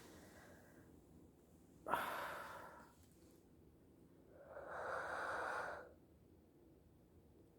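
A person sighing and yawning: a short, sharp sigh about two seconds in, then a longer drawn-out yawning breath around five seconds in.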